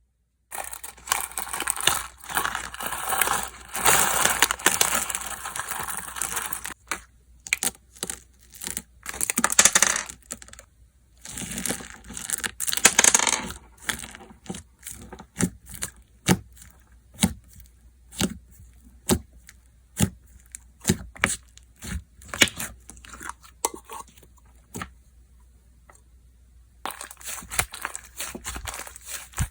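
Slime being handled by hand: several seconds of dense tearing and crinkling noise with louder bursts, then a long run of sharp separate clicks and pops, a short pause, and crinkling again near the end.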